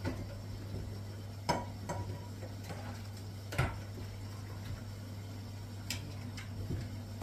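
Glass lid of a boiling pot clinking sharply four times, a couple of seconds apart, over a steady low hum.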